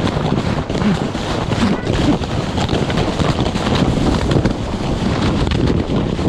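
Loud, steady rush of wind buffeting an action camera's microphone, in the way it does during a fast slide down a snowy hill.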